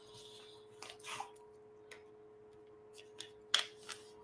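A person taking a drink from a cup: a few faint, scattered clicks and small sipping and handling noises, over a steady faint hum.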